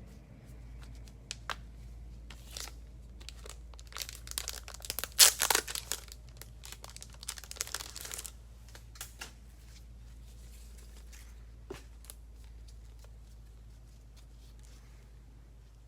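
Plastic wrapping being torn and crinkled off a box of trading cards, busiest and loudest from about four to eight seconds in, then a few light clicks and rustles, over a steady low hum.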